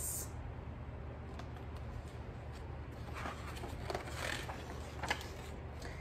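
Faint rustle of a hardcover picture book's pages being turned, a little after halfway, with a small tap near the end, over a low steady hum.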